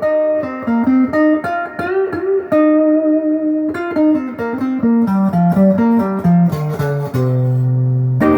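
Electric guitar, a Les Paul-style clone on its stock neck pickup through an amp, playing a single-note lead line of quick notes with a few string bends about two seconds in. The line steps downward and ends on a long held low note.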